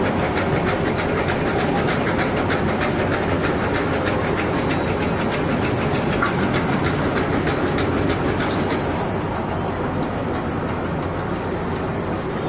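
Remote-control model construction machines running: a steady whir of small motors with a rapid clatter of clicks that thins out about two-thirds of the way through.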